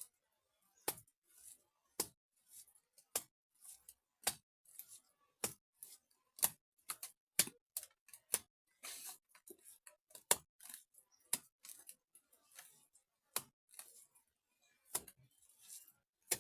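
Wet mud being slapped and pressed onto a cracked mud wall by hand: a string of short, irregular slaps and clicks, about one or two a second.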